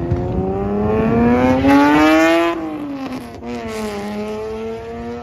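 Sports car engine accelerating hard past: its pitch climbs steadily to a loud peak about two and a half seconds in, drops on an upshift, then climbs again as the car pulls away.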